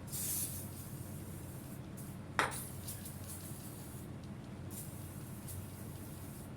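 A steady low hum, with a short hiss at the start and one sharp metallic clink about two and a half seconds in, like a small metal part or tool being set down.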